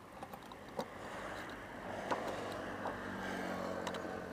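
A few sharp clicks as a key unlocks and lifts off a motorcycle's fuel tank cap, over the steady hum of a running vehicle engine that grows louder about a second in.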